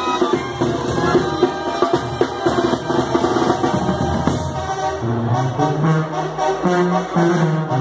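A live Mexican banda brass band playing, with trombones and drums. Regular drum strokes run throughout, and from about five seconds in a strong low brass bass line comes forward with long held notes.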